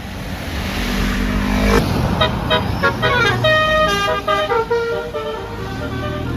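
A bus engine running, then from about two seconds in a Basuri telolet multi-tone horn plays a quick melody of short notes stepping up and down.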